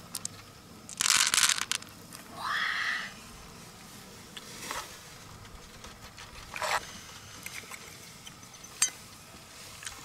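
Wet crunching and scraping as hands and a small knife work through the flesh of a large freshwater pearl mussel in its open shell. A loud crunch comes about a second in, a short rising squeak follows soon after, and a few soft clicks come later.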